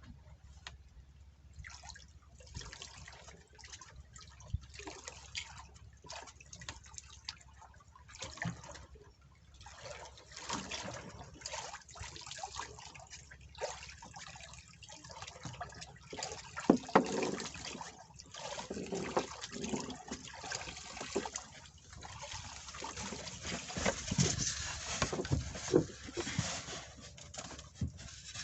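Water splashing and dripping in an irregular patter of small splashes and clicks, growing louder after about ten seconds.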